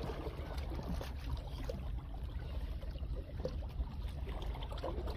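Small waves lapping and splashing softly against shoreline rocks, over a steady low rumble.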